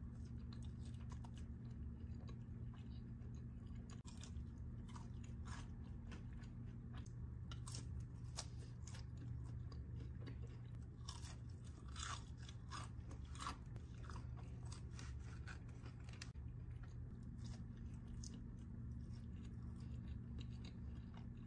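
A person biting and chewing crispy fried chicken close to the microphone: many small, sharp crunches, thickest in the middle, over a steady low hum.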